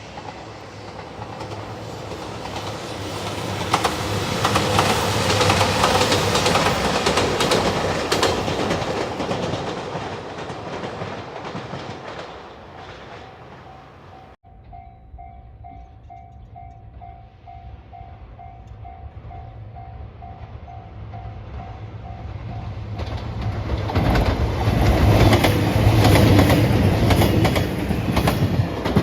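A train passes over a level crossing with clickety-clack of wheels over the rail joints, swelling and fading over the first half. After a sudden cut, a Japanese level-crossing warning bell rings about twice a second. Near the end another train approaches and passes loudly.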